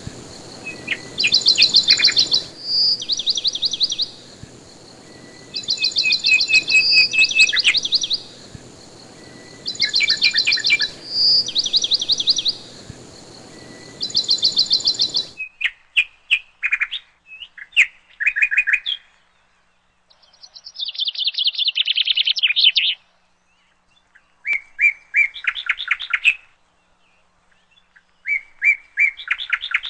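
Birds chirping in short, rapid trills repeated every second or two. A steady background hiss underlies the first half and cuts off abruptly about halfway through; the trills carry on with quiet gaps between them.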